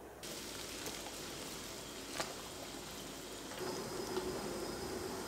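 Hot water simmering in a stainless-steel pot as a skewered fish cake is swished through it with metal tongs, with a sharp click about two seconds in. A steady low tone joins the water noise over the last couple of seconds.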